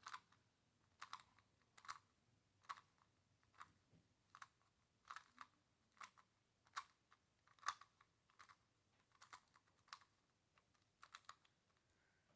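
Faint clicking of a 2x2 Rubik's cube's layers being turned, one or two turns a second, while a T-perm algorithm is executed.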